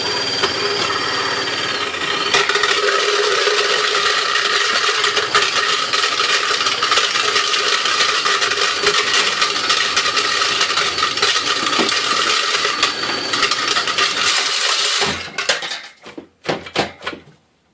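Garbage disposal spun by a drill through an Allen wrench in its bottom socket, because the disposal's motor is bad, grinding rocks: a steady drill whine with rapid rattling and clinking of stones against the grinding chamber. It stops about fifteen seconds in, followed by a few short bursts.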